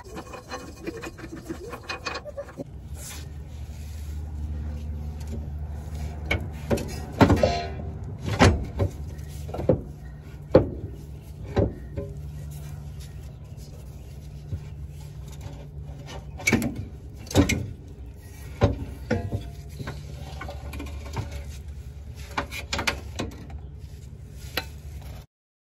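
Sharp metal clanks and knocks from wrenches and steering parts under a car, coming irregularly every second or so, over a steady low hum. The sound cuts off suddenly near the end.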